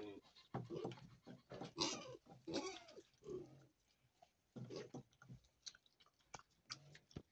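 Piglets grunting and squealing in short, irregular bursts, with a brief lull about four seconds in.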